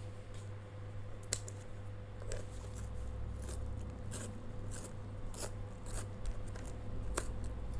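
A wooden pencil being sharpened in a pencil sharpener: a series of short, dry scraping rasps, about one a second, over a low steady electrical hum.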